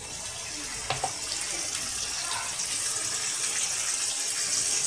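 Hot oil sizzling steadily in a cooking pot as tomatoes and green chillies fry in it: the masala for a biryani being fried (bhuna). It is a high, even hiss that grows slightly louder.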